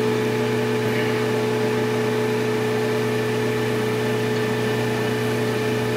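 VEVOR 3/4 HP refrigerant recovery machine running steadily, its motor humming at a constant pitch as it draws a vacuum on a car's A/C system. It's really not that loud.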